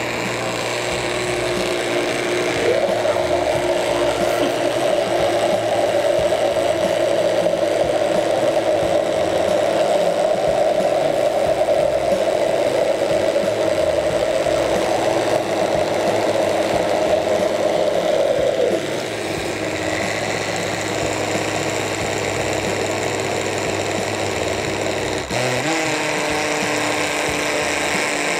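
Small electric countertop blender running, puréeing a thick carrot-and-potato sauce. The motor note climbs and gets louder about three seconds in, drops back quieter about two-thirds of the way through, and shifts again after a short click near the end.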